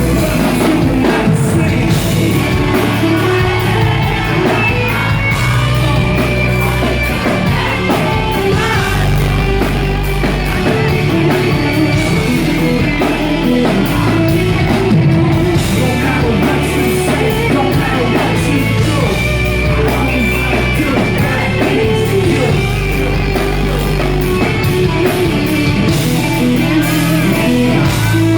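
Live band playing a rock-tinged pop song with singing, recorded loud and dense from the audience, with yells from the crowd.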